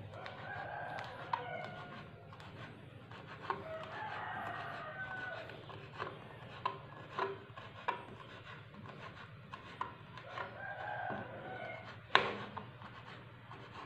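Knife slicing kaffir lime leaves on a plastic cutting board: scattered sharp taps of the blade on the board, with a louder knock about twelve seconds in. A chicken calls in the background three times.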